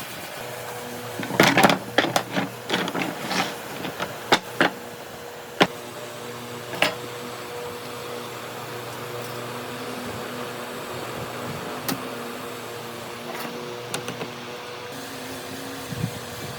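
A steady motor hum with a constant tone, with a quick run of sharp knocks and taps in the first few seconds and a couple of single knocks later.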